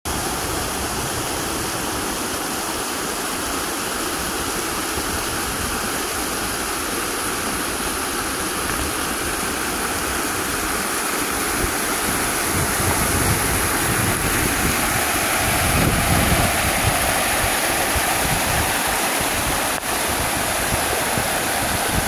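Steady rushing of water from a rocky stream cascading down as a waterfall, growing a little louder about halfway through.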